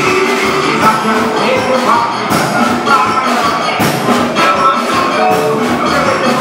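Live soca band playing, with percussion and cymbal strokes over a full band sound.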